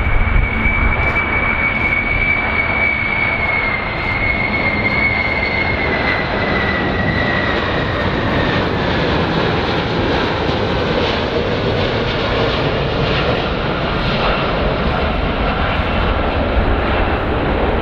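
Boeing 747 (VC-25A) jetliner on landing approach with its four turbofan engines running: a steady rumble with a high engine whine that slowly falls in pitch as the aircraft flies past.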